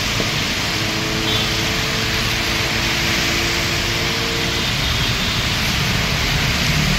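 Heavy rain and traffic on a wet road: a steady hiss of rain and tyre spray, with cars passing. A steady low hum of several tones sounds from about a second in until past four seconds, and the low rumble grows near the end.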